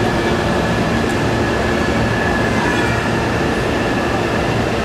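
Hankyu 1000 series electric train standing at a station platform, its equipment giving a steady hum with a thin, even whine above it.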